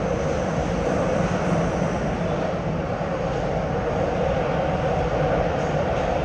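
Nagoya Municipal Subway 5050 series train running at steady speed through a tunnel: a constant rumble and roar of wheels on rail and running gear.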